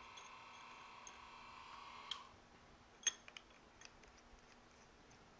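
A faint steady whine from the milling machine stops with a click about two seconds in. A few light metallic clicks and taps follow as the tooling is handled in a tool change.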